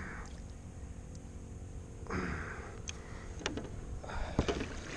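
Water splashing and knocking around a kayak, busier near the end, over a low steady rumble, with a short breathy rush about two seconds in.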